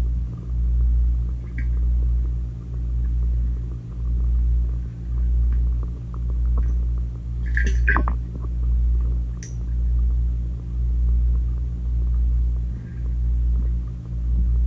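Steady low mechanical hum heard through an underwater camera in a swimming pool, swelling and fading about once a second, with a brief sharp click about eight seconds in.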